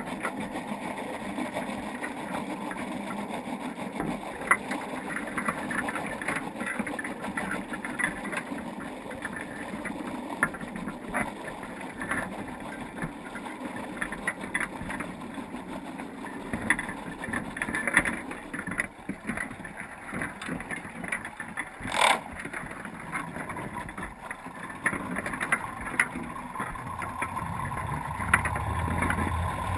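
Underwater sound inside a crab pot on the seabed: a steady hiss with many faint clicks and taps, and one sharp click about two-thirds of the way through. Near the end a low hum from a boat motor rises.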